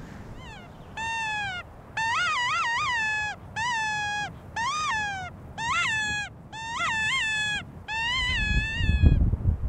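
Mouth-blown predator call sounding a run of about eight wavering, pitch-bending distress cries, each under a second, to lure in a black bear. Near the end a gust of wind rumbles loudly on the microphone.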